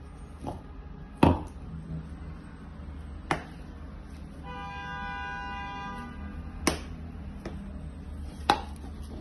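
Sharp knocks and clicks as spice jars and the plastic tub are handled on a tabletop, about six in all, the loudest a little over a second in. In the middle a steady pitched tone sounds for about a second and a half.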